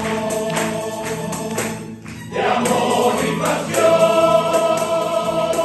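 Choir singing a song over a steady percussion beat, closing on a long held chord.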